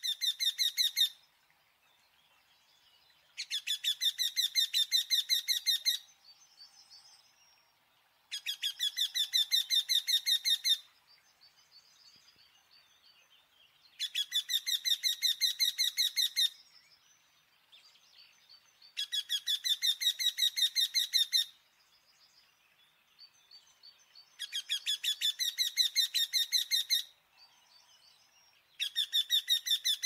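Woodpecker calling: bursts of rapid, evenly repeated high notes, each burst about two and a half seconds long, recurring about every five seconds with short pauses between.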